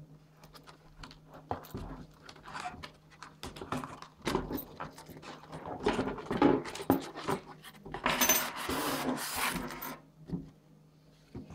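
A cardboard box and its paper instruction sheet being handled: scattered rubs, taps and clicks, then about two seconds of louder scraping rustle near the end as the sheet slides.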